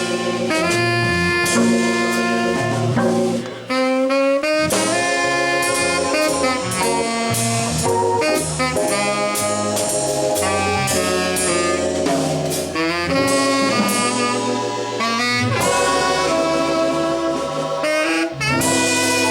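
Live jazz trio playing: a tenor saxophone carries a melody line of changing notes over organ and drum kit.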